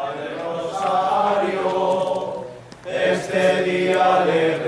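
A group of people singing a hymn together unaccompanied, in slow, held notes, breaking off briefly about two and a half seconds in before the next line.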